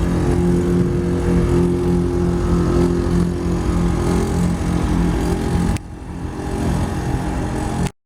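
Chevrolet S10 pickup's engine running steadily. About six seconds in the sound gets quieter, and just before the end it cuts off abruptly.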